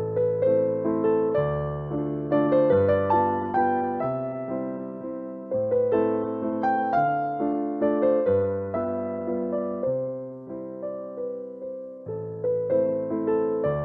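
Background music: a gentle electric-piano melody of struck notes that fade, over steady low bass notes.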